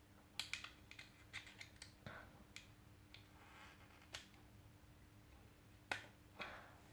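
Small sharp plastic clicks and snaps from a car's power window master switch being prised apart by hand, its white inner part being pulled out of the outer housing: a quick flurry of clicks at the start, a few scattered clicks after, and a short scrape near the end.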